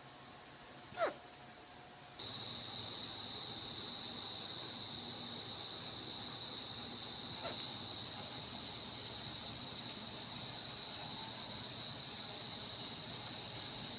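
Three short, squeaky hiccups spaced several seconds apart. A steady high-pitched hiss starts abruptly about two seconds in and continues under them.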